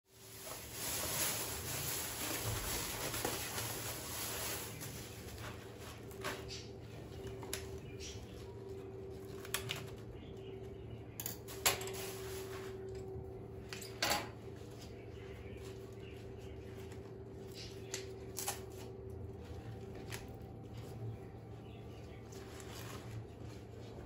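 A plastic bag rustling and crinkling while cabbage leaves are pulled out of it and separated by hand. There are a few sharp crinkles or snaps along the way, over a faint steady hum.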